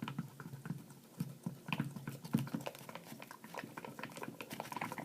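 A mixing stick stirring baking soda into glue in a bowl, with irregular sticky clicks and squelches.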